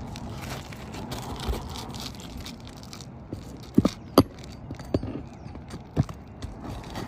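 Roofing nails being worked out from under asphalt shingles: scraping and crackling of the shingles, then several sharp metal clicks in the second half, the loudest about four seconds in.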